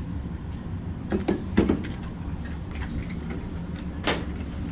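Three sharp bangs at a shooting range, two close together about a second in and a brighter one near the end, over a steady low hum.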